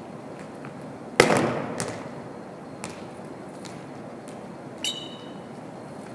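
A single loud smack of a volleyball hitting the hardwood floor about a second in, ringing out in the echo of a large gym. This is followed by a few light taps, and just before the end a short, high sneaker squeak.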